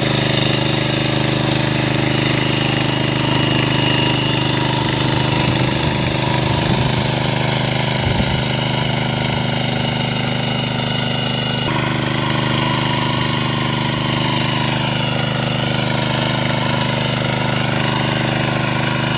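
A 9 hp power tiller's air-cooled single-cylinder engine runs steadily under load while its rotavator tines churn dry soil.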